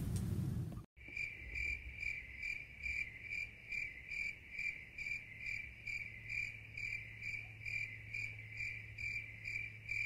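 A cricket chirping in an even, steady rhythm, about two to three chirps a second, starting about a second in over a faint low hum.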